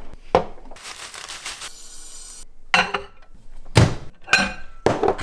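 Dishes being handled while a meal is made. A knock comes first, then a rustle lasting about a second and a half, then four or five sharp clinks and knocks, some ringing briefly.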